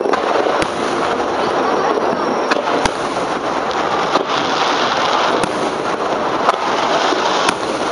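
Aerial firework shells bursting overhead: about seven sharp bangs at irregular intervals, the strongest about three seconds in, over a continuous dense noise.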